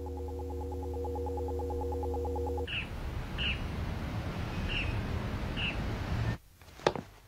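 Steady electronic hum with a pulsing tone, typical of a computer data screen, cutting off about two and a half seconds in. Then a soft outdoor hiss with four short bird chirps, and a sharp click or two near the end.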